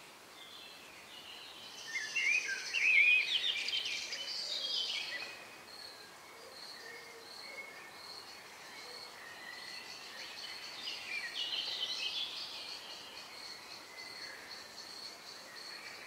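Songbirds singing: a loud phrase of quick twittering, warbling notes about two seconds in, and a softer phrase around eleven seconds, over a steady high-pitched insect trill.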